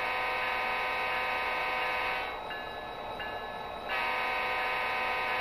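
SoundTraxx Econami sound decoder in an HO-scale Athearn SD40-2 model locomotive playing its diesel air horn through the model's small speaker: two long blasts, each about two and a half seconds. The locomotive's bell sound rings faintly underneath.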